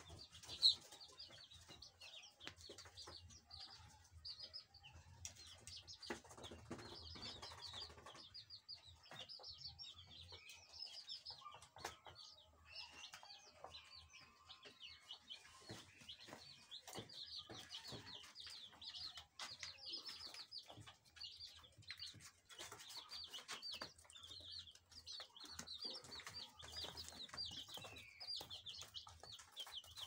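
A brood of young chicks peeping continuously: many short, high cheeps overlapping, with scattered small clicks.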